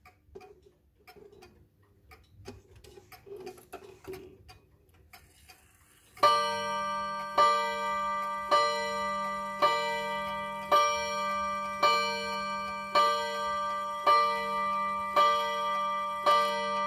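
Vintage Seiko 30-day pendulum wall clock striking ten o'clock: ten ringing strokes, about one a second, each ringing on into the next, set off as the minute hand is moved up to the hour. Before the strike, faint clicks and ticks from the movement as the hands are turned.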